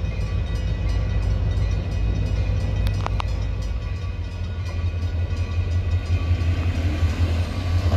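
Diesel freight locomotive rumbling steadily as the train approaches slowly, with the nearby grade-crossing signal bell ringing faintly. A brief sharp sound about three seconds in.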